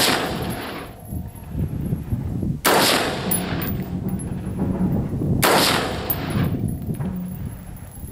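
Three rifle shots from a .223 AR-style rifle, fired slowly about two and three-quarter seconds apart, each sharp crack trailing off in a short echo.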